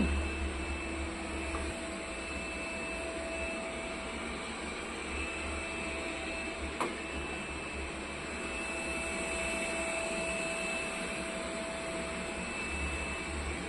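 Steady hum of a household appliance running, holding a few constant tones over an even whirring noise, with a single light click about seven seconds in.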